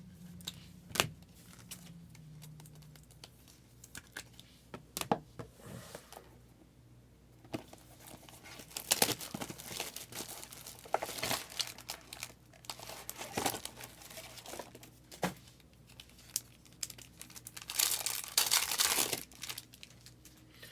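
Trading card pack wrappers being crinkled and torn open, with scattered sharp clicks and longer rustling bursts about halfway through and near the end.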